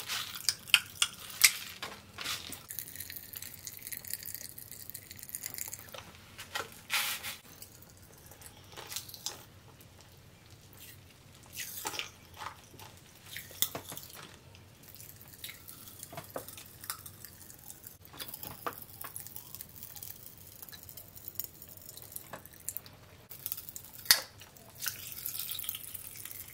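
Pop Rocks candy crackling in the mouth: scattered sharp pops and snaps at irregular times, with wet mouth sounds.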